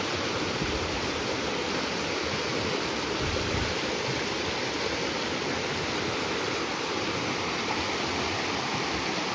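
Muddy floodwater rushing and churning over a ledge in a small stream swollen by a flash flood after heavy rain, a steady, unbroken rush.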